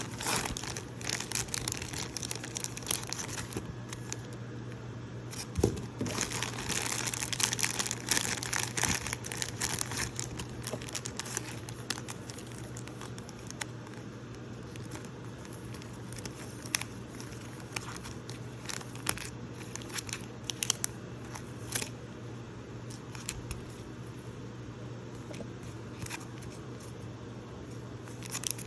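Packaging of a card-making kit being handled and opened: crinkling and rustling in dense stretches during the first ten seconds, then scattered sharp crackles and clicks, over a steady low hum.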